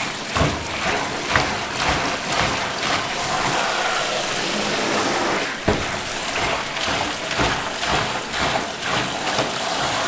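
Tap water spraying into a plastic bowl while a rubber-gloved hand rubs and swishes scalded frogs in it, washing off their white skin membrane; a steady rush with irregular splashes and knocks throughout.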